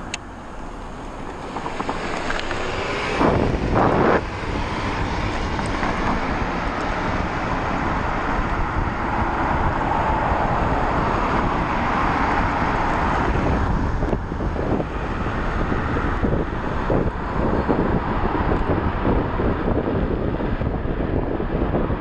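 Wind rushing over the microphone, with road noise, as if from a moving ride. It swells over the first few seconds, with two loud gusts about three to four seconds in, then holds steady.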